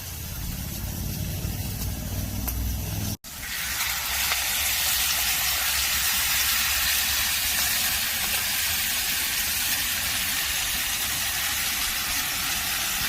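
Food sizzling on a grill over a wood fire: a steady, high hiss that starts after a brief break about three seconds in, preceded by a low rumble.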